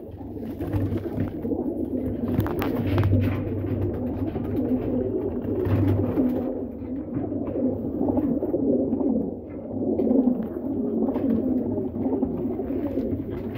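A crowd of domestic high-flyer pigeons cooing together, many voices overlapping into one continuous sound.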